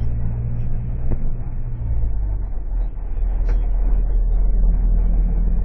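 Low, steady engine drone and road rumble heard from inside a moving vehicle, with the engine note shifting about two seconds in.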